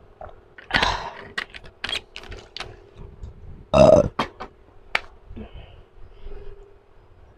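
A woman burps after a drink of water, loudest about four seconds in, amid a string of small clicks and knocks from the plastic water bottle and the phone being handled. A faint steady hum sits underneath.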